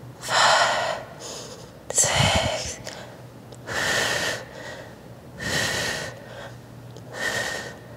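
A woman breathing hard from exertion during a resistance-band glute exercise set: about five forceful, breathy exhalations, one every second and a half or so.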